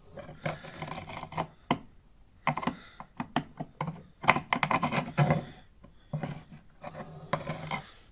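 Scribing compass (a pencil scriber) run along a rough plaster wall against a pine frame post: its point and pencil scratch and tick in a string of irregular scrapes and clicks, busiest about halfway through.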